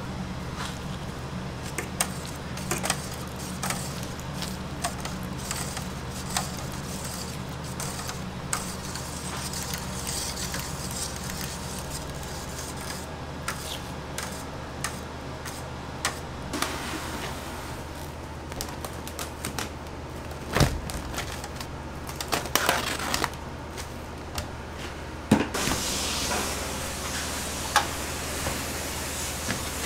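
Kitchen work over a steady low hum of equipment: scattered light clicks and knocks of a whisk and utensils against a stainless steel pot of tomato sauce and metal baking trays. A few louder knocks come about two-thirds of the way through, and a soft hiss sets in near the end.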